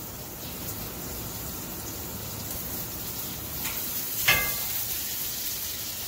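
Steaks sizzling in a cast-iron skillet as they are turned with metal tongs. About four seconds in there is a sharp metallic clink with a brief ring, the tongs striking the pan.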